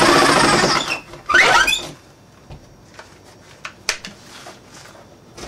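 Power drill running steadily as it drives a screw into the sheet-metal duct panel, stopping just under a second in. A short rev of the motor follows, then only small clicks and taps of the drill being handled.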